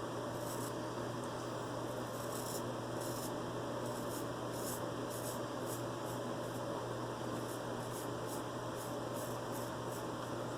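Short, quick strokes of a vintage George Wostenholm & Sons straight razor scraping through whiskers, roughly one or two a second, over a steady background hum.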